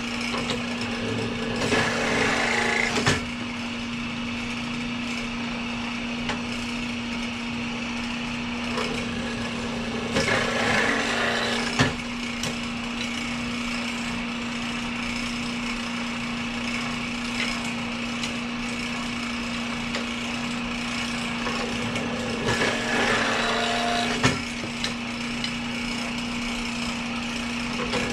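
Old workshop drilling machine's motor running with a steady hum, cutting three times into new clutch lining as the remaining rivet holes are drilled and counterbored: a grinding, rasping cut at about two seconds in, again at about ten seconds and again near the end, each ending in a short knock.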